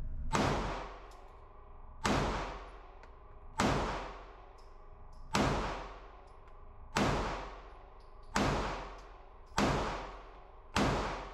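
Smith & Wesson Shield Plus micro-compact pistol firing eight shots at a slow, steady pace, about one and a half seconds apart. Each shot echoes off the walls of the indoor range.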